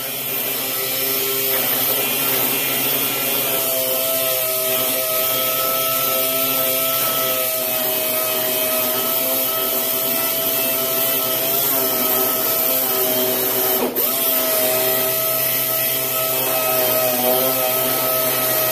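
Air-powered orbital sander running steadily on 150-grit paper, sanding body filler on a steel door panel: a constant whine over a hiss of air. It dips for an instant about two-thirds of the way through.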